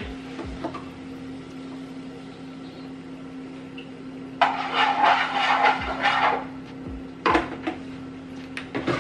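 Kitchen stove work: a steady low hum throughout, a hiss of about two seconds midway, and a few short knocks or clatters near the end, as oil goes into a pan.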